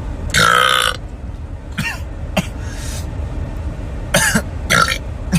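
A man's loud burp lasting under a second, starting about half a second in, followed by a few short coughs and throat-clearing sounds.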